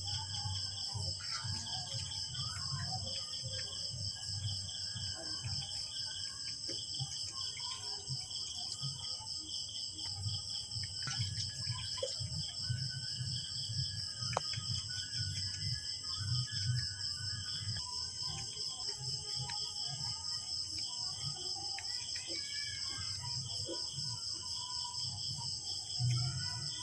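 Steady, high-pitched chorus of chirping insects with a fine, fast pulse, over a low rumble, with scattered short chirps and whistles throughout.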